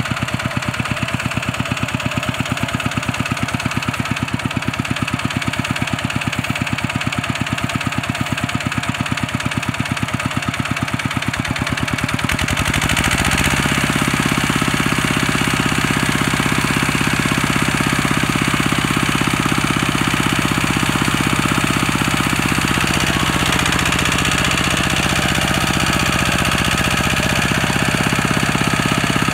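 Two-wheel walking tractor's single-cylinder diesel engine running with an even, rapid beat, then opened up about twelve seconds in to run faster and louder, working to free the tractor where it is stuck in the field.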